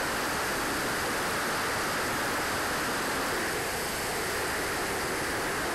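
Steady rushing noise of an RC turbine jet in flight, heard from its onboard camera: air rushing past the airframe together with the Swiwin SW60 turbine running.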